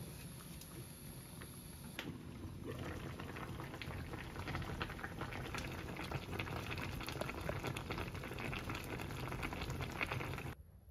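Pot of gamjatang, a pork-bone stew with potatoes and dried radish greens, bubbling at the boil. The bubbling grows louder and busier, with many small pops, from about two seconds in, and cuts off abruptly just before the end.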